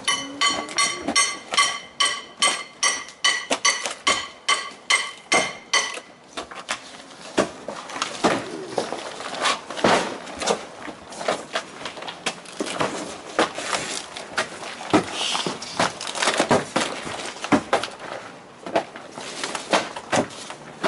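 A hammer striking tar-and-gravel roofing about three times a second with a metallic ring, then irregular knocks and scraping as the roofing is chipped and pried up.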